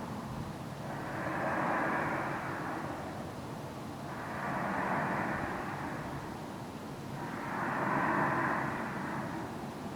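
Unidentified distant roaring noise over a steady low rumble, swelling and fading in slow waves about every three seconds.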